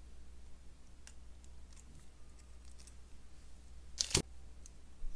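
Faint clicks of jewelry pliers and thin copper wire being handled while a wire tail is wrapped around a bead dangle, with one sharper click about four seconds in.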